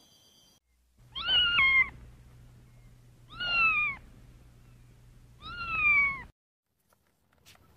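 Siamese cat meowing three times, about two seconds apart; each meow lasts under a second and falls slightly in pitch.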